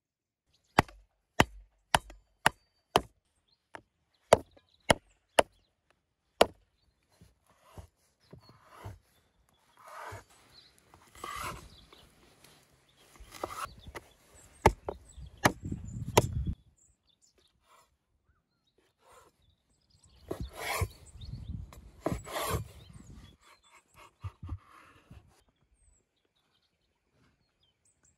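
Cleaver chopping lamb fat on a wooden cutting board: a run of about ten sharp knocks roughly half a second apart, followed by two longer stretches of scraping and rubbing on the board.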